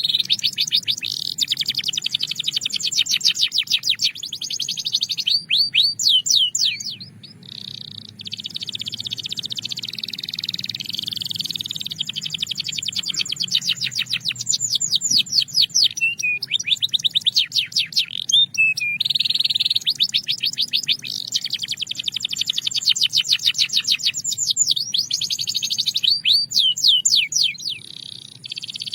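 Belgian canary singing: long rolls of rapidly repeated high notes, broken by short swooping notes, with a brief pause about seven seconds in and another near the end.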